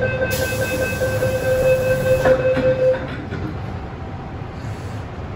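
Door-closing warning tone of an MTR M-train sounding steadily for about three seconds, with a knock a little over two seconds in as the sliding doors shut. A low rumble from the train runs underneath.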